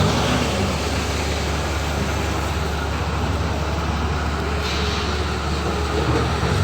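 A large engine running steadily, a constant low drone with no change in speed.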